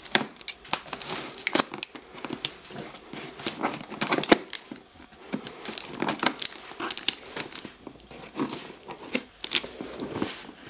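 A parcel's packaging being torn and pulled open by hand, with irregular crinkling and crackling as it resists.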